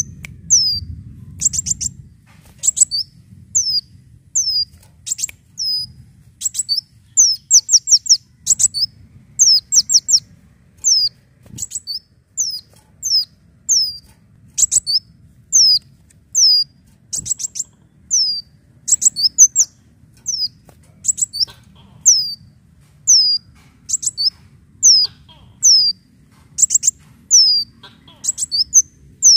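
Kolibri daun, a caged sunbird, calling over and over in short phrases of very high, sharp chirps, each phrase ending in a quick falling whistle, about one phrase a second.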